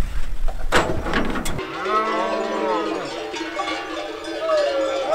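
Herd of goats bleating, many calls overlapping, starting abruptly about a second and a half in after a low rumble with a few knocks.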